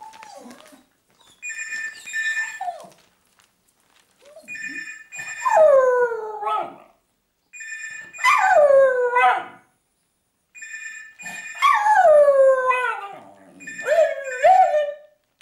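A small black-and-white terrier howling along with a ringing telephone. The phone rings about five times, a second or so each, roughly every three seconds, and the dog answers each ring with a howl that slides down in pitch; the howls are louder than the rings.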